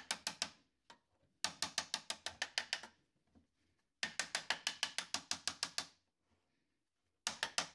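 Bosch alternator casing being tapped to break the old bond between its two halves once the through bolts are out. The taps are quick and light, about eight a second, and come in several runs with short pauses between.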